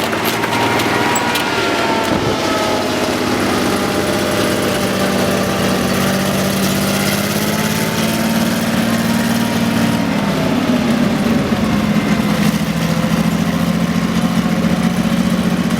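Maybach HL 120 V12 petrol engine of a Panzer IV Ausf. G tank running steadily, with a faint wavering whine above its hum. The engine grows louder about ten seconds in.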